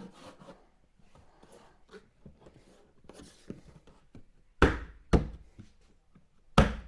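Hands working rubber weather trim onto a car's body panel: faint rustling and small clicks, then sharp slaps of palms on the panel, two about half a second apart a little past halfway and one more near the end.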